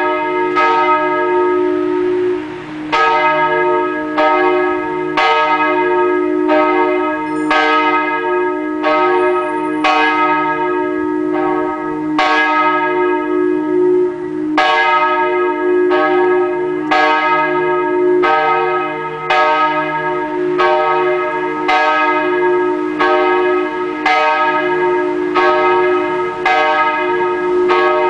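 Catholic church bell rung before Mass. It is struck about once a second, with a couple of brief pauses, and each strike rings on over a steady, sustained hum.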